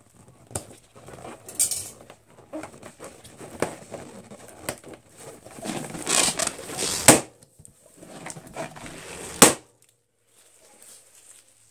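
Latex balloons being handled and squeezed, their skins rubbing and crinkling with small clicks, then two sharp balloon pops, the first about seven seconds in and the second a couple of seconds later.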